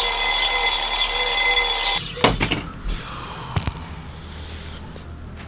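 Alarm clock ringing in a steady, repeating pattern, then cutting off suddenly about two seconds in as it is switched off. A few short knocks follow.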